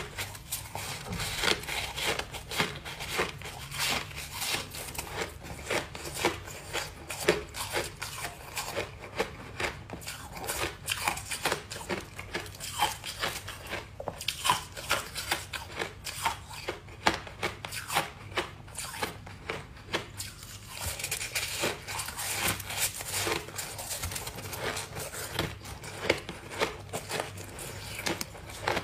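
Close-up chewing of a lump of frosty packed ice: a steady run of crisp crunches and crackles, with a short lull around twenty seconds in before it picks up again.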